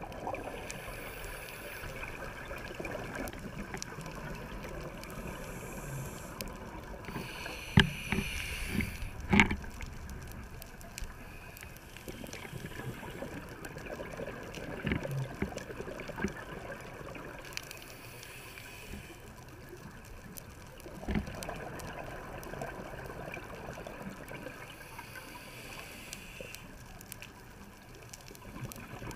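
Underwater ambience recorded by a diver's camera, with the rush of scuba regulator exhaust bubbles coming back about every nine or ten seconds. A few sharp knocks are heard, the loudest two close together about eight and nine seconds in.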